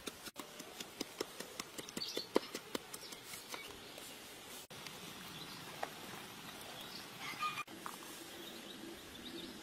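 Wooden pestle tapping and knocking in a wooden mortar while pounding chilies: a run of sharp, irregular taps over the first few seconds, then quieter.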